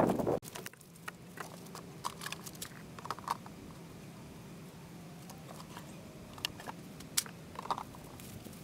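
A burst of wind noise that cuts off sharply about half a second in, then scattered light clicks and knocks of wooden beehive boxes and frames being handled, over a faint steady low hum.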